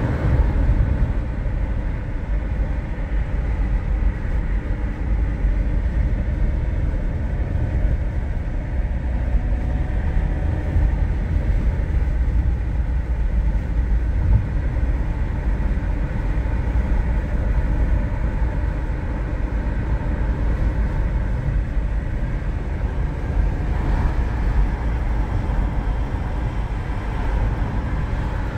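Steady low rumble of a car driving at highway speed, heard from inside the cabin: tyre and road noise with the engine under it.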